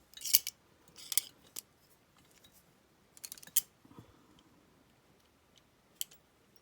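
Steel handcuffs being handled: sharp metallic clicks and clinks in a few small clusters, with a quick run of clicks a little over three seconds in and one more click near the end.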